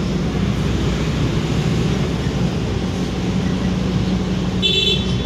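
Fidget spinner spinning freely on its bearing on a granite countertop: a steady low whir, with the spinner's vibration carried through the stone. About three-quarters of the way in, a brief high-pitched tone sounds once.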